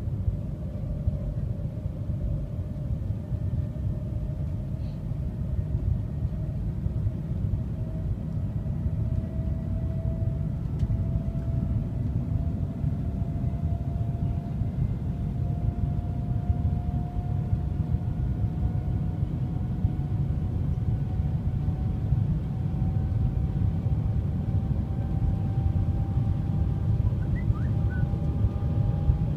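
Cabin noise of the Shanghai Transrapid maglev train in motion: a steady low rumble with a faint whine that rises slowly in pitch.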